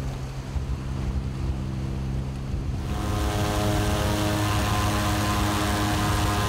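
Motorboat engine running steadily under way, with rushing water and wind. About three seconds in it becomes louder, with more hiss.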